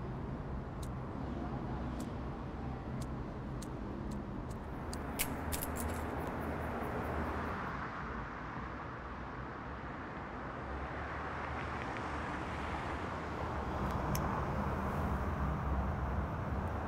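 Steady low background hum like distant city traffic. Faint sharp clicks come about once a second for the first five seconds, bunched closely near five seconds: a handheld lighter being flicked.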